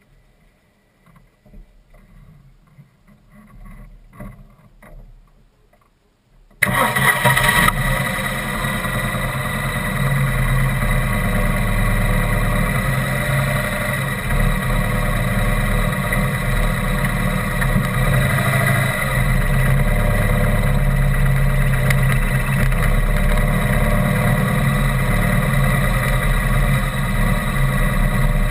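A motor vehicle's engine starts abruptly about six and a half seconds in and then runs steadily and loudly.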